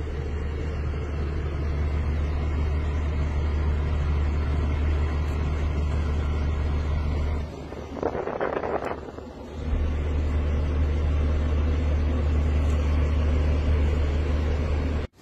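Steady low rumble of a car's engine and road noise inside the cabin of a Bentley. It drops away for about two seconds near the middle, where a brief rustling scrape is heard.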